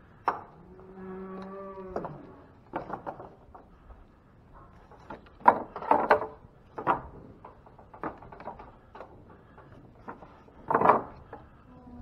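Wooden slat gates and boards of a cattle pen knocking and rattling as they are swung and latched by hand, in a string of sharp knocks, the loudest around the middle and near the end. One of the cattle moos once, a held call of just over a second near the start.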